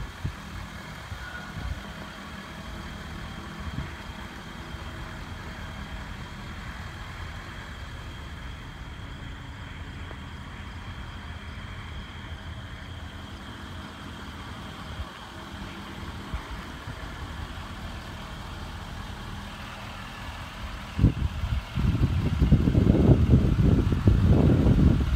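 Ford F550 Super Duty fire rescue truck's engine idling steadily. Near the end, a much louder, uneven rushing noise sets in over it.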